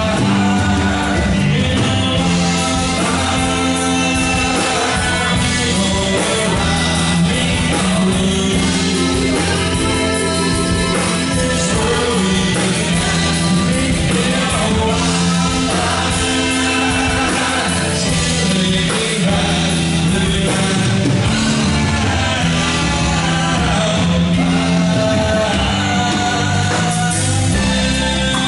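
Live band playing a country-rock song: drums, bass and electric guitars, with a lead voice singing over them.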